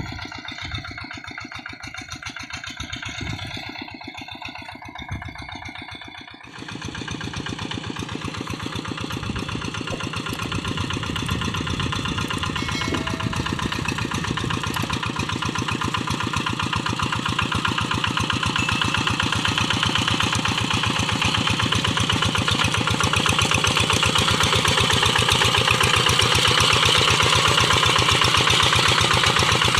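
Kubota single-cylinder diesel engine of a Quick G1000 two-wheel hand tractor running with a fast, even knock. About six seconds in it suddenly turns louder and busier, then slowly grows louder still.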